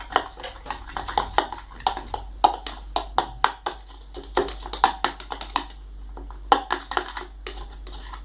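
Homemade glue slime being kneaded and squeezed by hand, giving an irregular run of small sticky clicks and pops.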